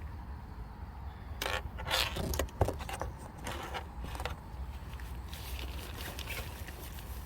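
Rustling and scraping of things being handled close by, with a sharp click about two and a half seconds in, over a steady low rumble.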